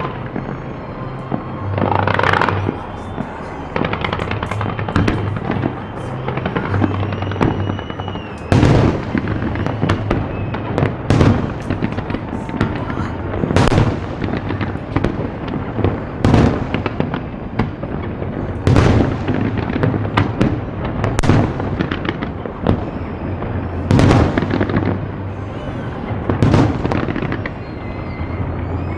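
Fireworks display: aerial shells going off in sharp bangs about every two and a half seconds, with continuous crackling between them, over music.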